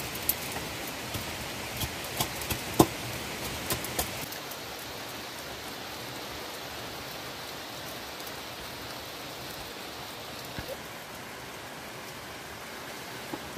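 Steady rain falling, an even hiss, with a few sharp ticks in the first four seconds; the hiss eases slightly about four seconds in.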